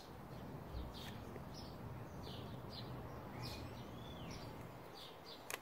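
Small birds chirping in the background: scattered short high chirps and one longer whistle that rises and falls about three seconds in, over a steady low background hum. A brief sharp click near the end.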